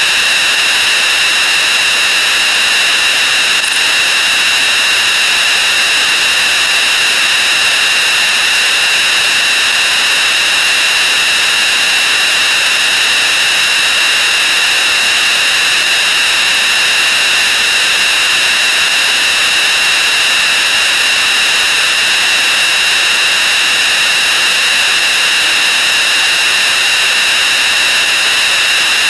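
A loud, unbroken wall of noise with a steady high ringing tone and several fainter higher tones over it. Many sound effects are layered and sped up 64 times until they blur into one hiss-like drone.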